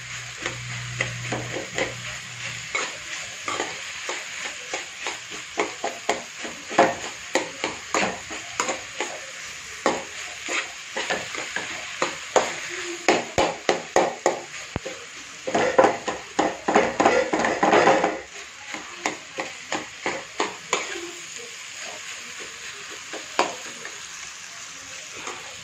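A metal spatula stirring and mashing boiled potato into vegetable stuffing in a metal pan, with many quick scrapes and taps against the pan. Under it, a steady sizzle of frying over full flame.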